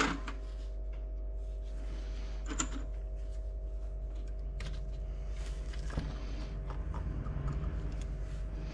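Hand tools working on a motorcycle engine: a few light clicks and knocks over a steady low hum.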